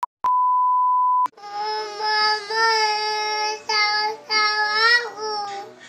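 A steady test-tone beep for about a second, then a toddler crying in long, drawn-out wails that break about once a second.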